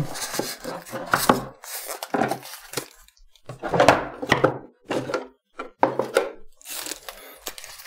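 Polystyrene foam packing being pulled off an audio interface: irregular rubbing and handling noise with several sharp knocks.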